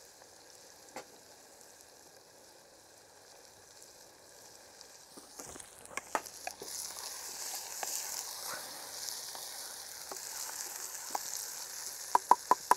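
Chicken and vegetables stir-frying in a pan over a wood fire: faint at first, then a steady sizzle starts about halfway in as a wooden spoon stirs, with scattered clicks of the spoon on the pan. Near the end, four quick, loud knocks of the spoon on the pan.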